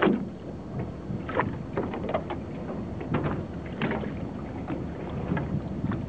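Wind rumbling on the microphone, with small waves irregularly lapping and splashing at the water's edge.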